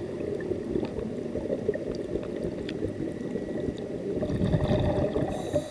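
Scuba diver's exhaled breath bubbling out of the regulator underwater, heard through the camera's underwater housing: a continuous low bubbling and gurgling that swells into a louder burst of bubbles about four seconds in.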